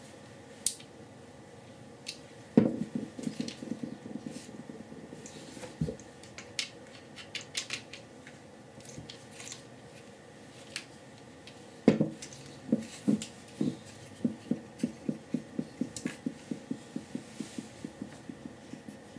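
Hand screwdriver turning screws into a 3D-printed plastic microscope stage, with small sharp clicks and knocks. There is a cluster of clicks early on, then from about two-thirds of the way in an even run of about three clicks a second that slowly fades.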